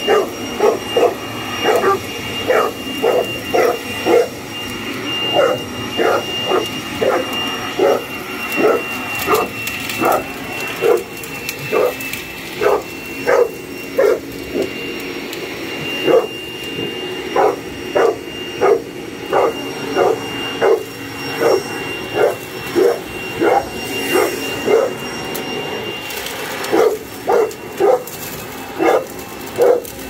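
Boerboel barking over and over, roughly one or two sharp barks a second with short pauses, at an electric garden leaf blower-vacuum. The blower-vacuum's motor runs steadily underneath with a high whine.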